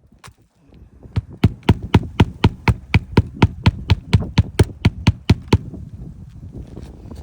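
Hammer striking a roof snake, the flat bar slid under shingles to pull roofing nails: quick, even blows at about four a second, some twenty in all, stopping a little past the middle, followed by softer irregular knocking.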